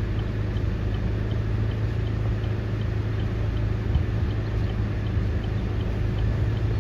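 A car running, a steady low drone of engine and road noise.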